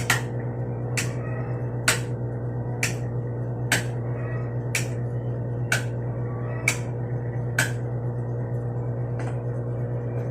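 Sharp clicks, about one a second, over a steady low hum; the clicks grow fainter near the end.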